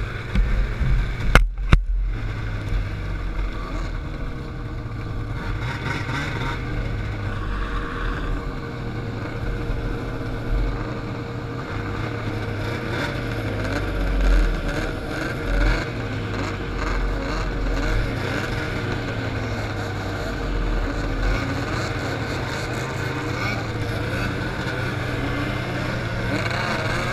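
Snowmobile engine running at race speed, heard from on board, its pitch rising and falling again and again with the throttle, over wind and track noise. The sound briefly cuts out about two seconds in.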